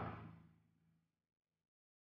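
City street noise with a low steady hum, fading out over about the first second and then dropping to complete silence.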